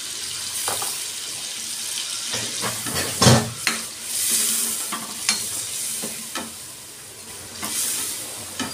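Metal spoon stirring and scraping chicken in a kadhai as freshly added ground onion-tomato masala is mixed in, over a steady sizzle of frying. Scattered knocks and scrapes of the spoon on the pan, the loudest about three seconds in.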